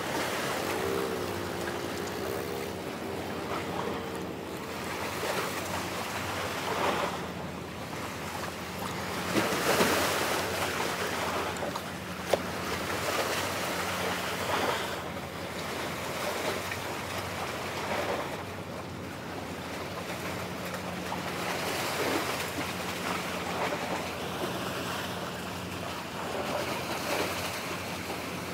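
Sea waves washing against a breakwater in surges every few seconds, with wind buffeting the microphone and a steady low hum underneath.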